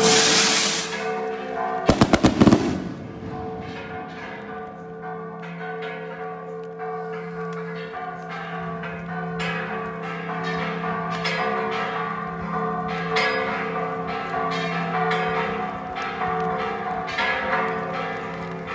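Parish church bells ringing a festive repique, several bells sounding together with repeated strikes. A firework rocket goes off over the ringing: a loud hiss at the start, then a quick string of about five sharp bangs about two seconds in.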